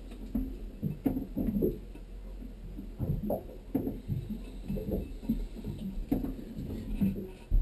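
Irregular low thumps, knocks and rustling of close-up handling work on a marine toilet, with clothing brushing against the microphone and a few sharp clicks.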